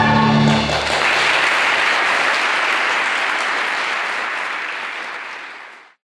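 The last held chord of a musical number ends about half a second in. An audience then applauds, and the applause fades away before cutting off abruptly just before the end.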